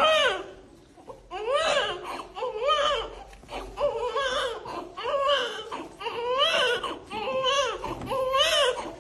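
A baby crying: a run of high-pitched, rising-and-falling wails, about one a second.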